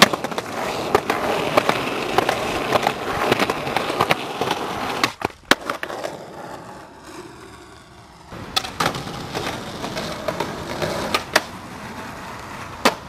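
Skateboard wheels rolling on concrete, with repeated sharp clacks and knocks of the board. The sound drops off briefly about five seconds in, comes back quieter, then louder again, with one sharp, loud clack near the end.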